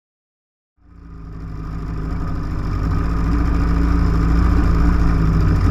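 Small boat's old outboard motor running steadily, fading in about a second in and growing louder before holding level. The owner thinks it is running a little rich on fuel from an old tank.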